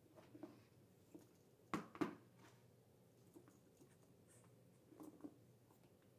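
Near silence in a quiet room, broken by a few light clicks and knocks as a leather handbag and its shoulder strap hardware are handled. Two sharper clicks come close together about two seconds in.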